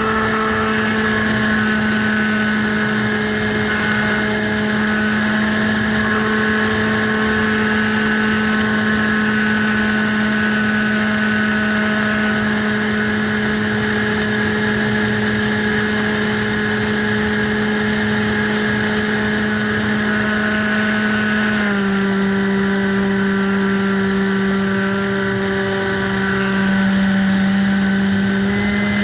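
Radio-control FPV plane's motor and propeller drone, heard from on board, holding a steady pitch. The pitch drops a step about three-quarters of the way through as the throttle is eased, and rises again near the end.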